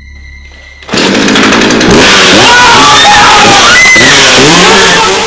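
A chainsaw starts up loud about a second in and runs at high revs, its pitch rising and falling, with a person screaming over it.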